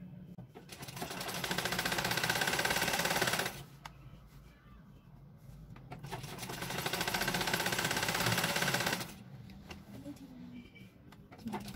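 Black domestic sewing machine stitching a bed sheet's edge: two runs of rapid, even stitching of about three seconds each, with a pause between, and a third run starting near the end.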